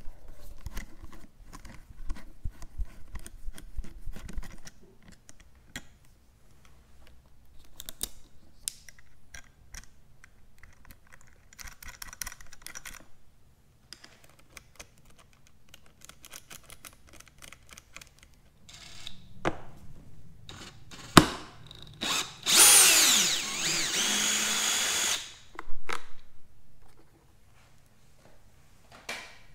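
Hand screwdriver working the battery terminal screws of a motorcycle: light clicks, taps and scrapes of metal on metal and plastic. About 21 seconds in there is a sharp knock, then a louder sound lasting about three seconds that slides up and down in pitch.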